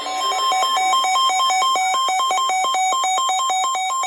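Emergency Alert System SAME header data burst on NOAA Weather Radio: a loud, harsh electronic warble switching rapidly between two pitches. It is the digital code that opens a severe thunderstorm warning and sets off alert receivers.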